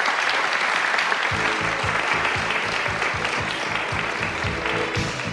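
Audience applauding steadily. About a second in, music with a steady beat starts under the applause.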